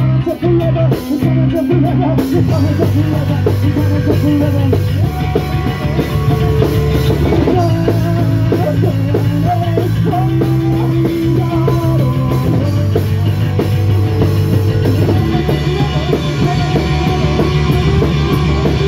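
Punk rock band playing live, with guitars and a drum kit, and a man singing into the microphone. The music is loud and steady, the low notes changing every second or two.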